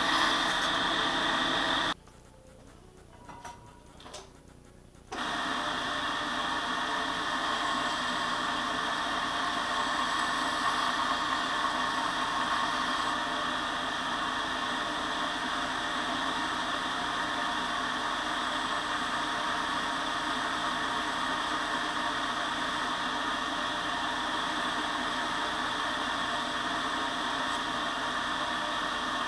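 Homemade belt grinder's electric motor and sanding belt running steadily, a constant hum with a few fixed tones. The sound drops away for about three seconds around two seconds in, then carries on unchanged.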